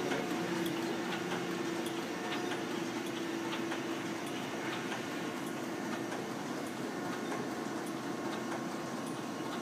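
Sheetfed offset printing press running steadily: a continuous mechanical din with a constant hum and light, irregular ticking and clatter.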